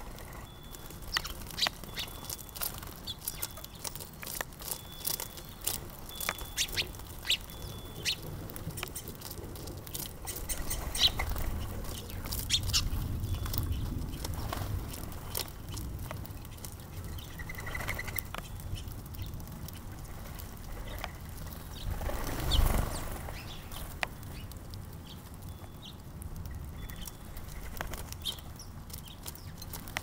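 House sparrows chirping at a seed feeder, with many sharp clicks and taps, densest in the first eight seconds. A low rumble builds around the middle, and a louder low swell comes about two-thirds of the way in.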